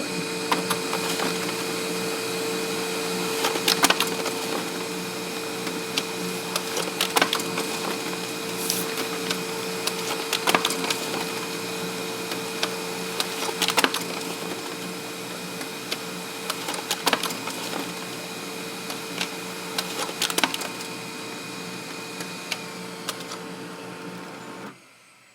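Samsung SCX-4300 laser multifunction printer printing: a steady motor hum with irregular sharp clicks and snaps over it. The hum stops suddenly near the end.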